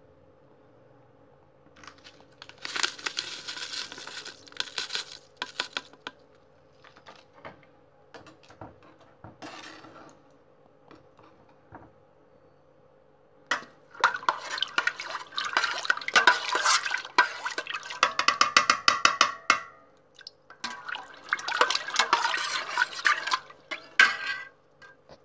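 Metal spoon stirring liquid in a stainless steel pot, clinking and scraping against the pot in three spells, the longest about halfway through.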